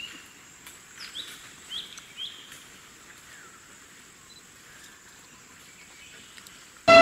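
Forest ambience: small birds give short chirping calls through the first couple of seconds over a thin, steady, high-pitched tone. Right at the end a loud horn suddenly starts blaring.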